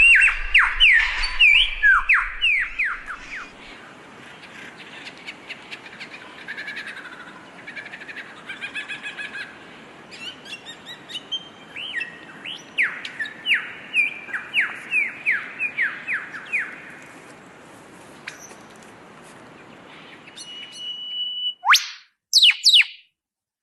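A songbird singing a varied song in bursts of quick, downward-sweeping whistled notes, with quieter pauses between the phrases. Near the end there is a short held whistle, then a few loud sweeping calls before the sound cuts off.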